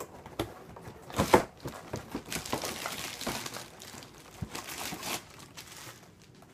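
Packaging wrap crinkling and rustling as scooter handlebars are unwrapped, with a sharp crackle just over a second in, the handling dying down near the end.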